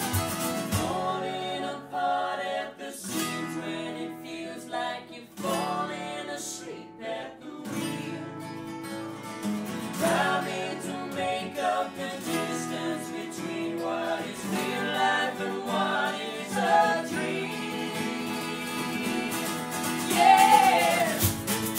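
Live acoustic folk band: two acoustic guitars strummed while several voices sing together.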